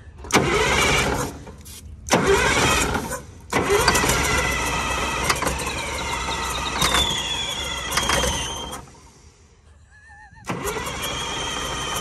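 Diesel engine of a 1962 Plymouth switcher locomotive cranked on its 24-volt starter after a shot of ether: two short bursts, then a long crank of about five seconds that ends in a falling high whine, and cranking again near the end. The speaker expects the engine will probably need power to the injection pump's fuel solenoid to run.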